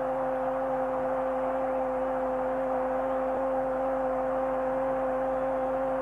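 A football commentator's drawn-out goal cry, one long "gooool" held on a steady pitch, over the noise of a stadium crowd celebrating a goal.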